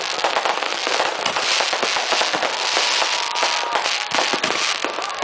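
Many fireworks and firecrackers going off at once: a dense run of rapid crackling pops and bangs over a steady hiss, with a faint whistling tone about halfway through.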